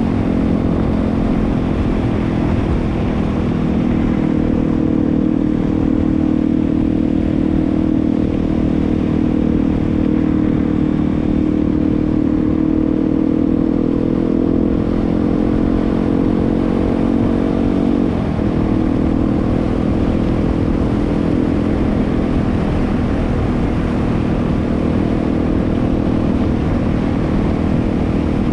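Yamaha WR250R's 250 cc single-cylinder four-stroke engine running steadily while riding, its pitch sagging slightly and dipping briefly about two-thirds of the way through, as with a gear change or a lift of the throttle, over a low rumble.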